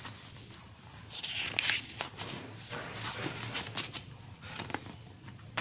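Faint rustling of a paper warranty card being handled and flipped open, with a few soft crinkles.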